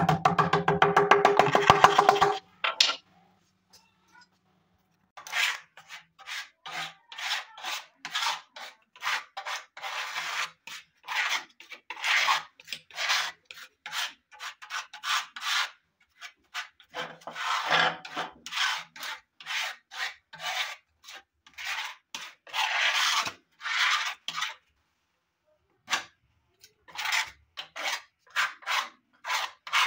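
Hand filing along the edge of a red laminated board: repeated rasping strokes, about two a second, in long runs with a short pause near the end. A quick run of taps in the first two seconds.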